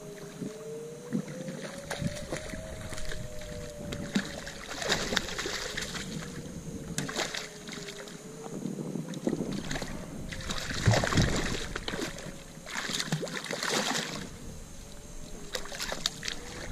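A hooked redfish thrashing and splashing at the water's surface beside the boat as it is landed, in several bursts, the biggest about eleven seconds in. A faint whine wavering in pitch sits underneath.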